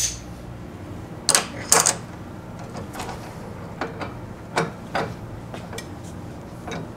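Steel tooling clinking and clicking as a small collet-chuck extension holder with a drill is handled and fitted up into a milling machine's spindle: a string of short, sharp metal clicks at irregular intervals, the loudest two between one and two seconds in.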